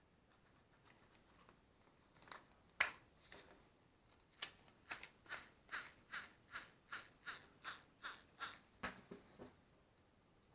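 A run of light, even clicks, about two and a half a second, after a single sharper click, ending in a duller knock. No motor is running.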